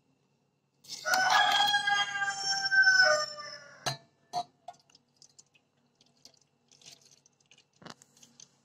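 A rooster crowing once, a long call of about three seconds that dips in pitch at the end. Right after it come two short clicks.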